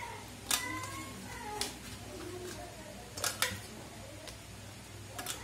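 Biscuits being broken by hand and dropped into a stainless-steel mixer-grinder jar: a handful of sharp, separate clicks and clinks, two of them close together a little past the middle. A faint voice sounds in the background.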